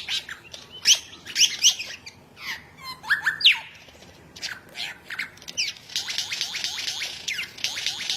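Bird calls: a series of sharp, sweeping whistled notes and squawks, then from about six seconds in a fast, continuous chatter of short notes.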